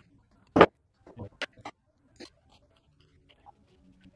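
A few sharp clicks and light knocks from hands working on the back of a wooden picture frame; the loudest knock comes about half a second in, then a quick run of smaller clicks, fading to faint ticks.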